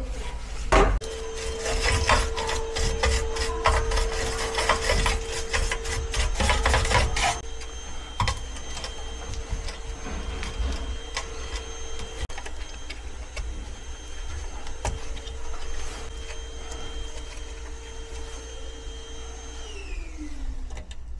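Gloved hands handling the wiring and a burnt fan relay board in a furnace cabinet: dense scraping and clicking for about six seconds, then only occasional clicks. Under it runs a steady tone that drops in pitch near the end.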